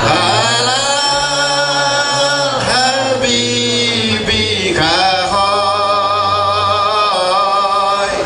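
A man singing a sholawat into a microphone, in long drawn-out phrases with wavering, ornamented notes that slide between pitches.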